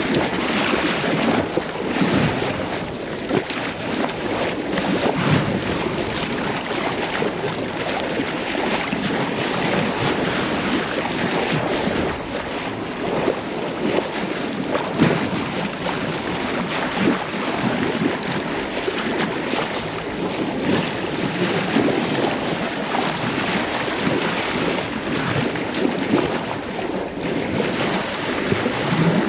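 Wind buffeting the microphone over the rush of sea water and waves along a sailboat's hull, unevenly gusting throughout.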